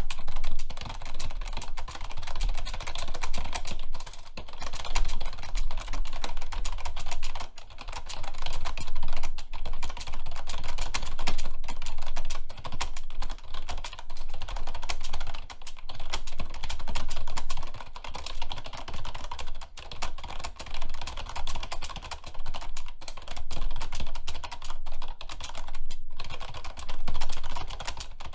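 Fast, hard typing on a computer keyboard: a dense, continuous stream of key clicks during a typing speed test, with only brief pauses.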